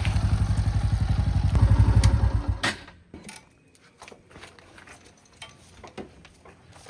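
Diesel engine of a JCB 3DX Plus backhoe loader running with an even low pulsing. It grows louder about a second and a half in, then cuts off suddenly just under three seconds in, leaving only faint clicks and knocks.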